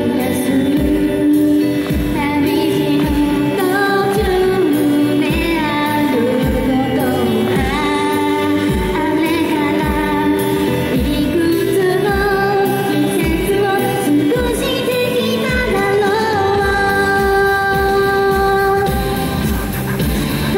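A woman singing a pop ballad live into a handheld microphone, her melody gliding between held notes, over amplified backing music with a steady beat.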